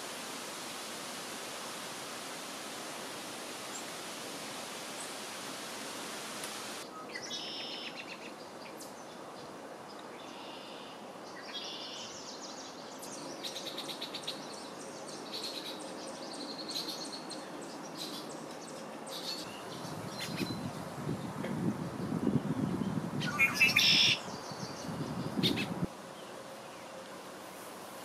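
A steady hiss of outdoor noise, then from about seven seconds in, birds chirping and calling in short repeated notes, loudest about three-quarters of the way through. A low rumble comes in under the calls near the end and stops suddenly.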